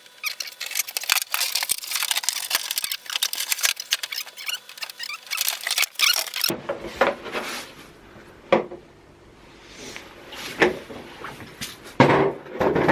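Dense crackling and rustling of things being handled, cutting off abruptly about six and a half seconds in. After that comes a quieter stretch with four separate sharp knocks.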